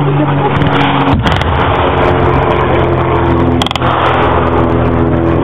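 Engine of a military vehicle running steadily with a low, even drone.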